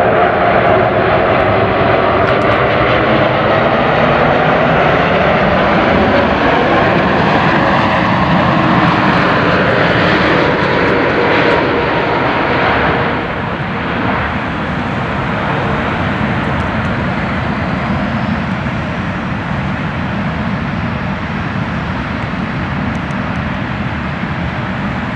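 Boeing 747-8 freighter's four GEnx turbofans on landing approach, passing low with a loud engine whine and rumble that slides down in pitch as it goes by. The sound eases somewhat about 13 seconds in as the jet moves away to land.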